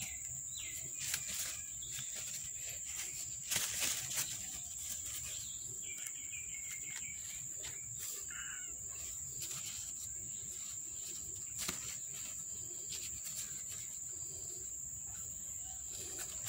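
Outdoor ambience with a steady high-pitched insect drone and a few short bird calls. Soft crackling rustles of paper tissue come about a second in and again around four seconds in, the loudest sounds here.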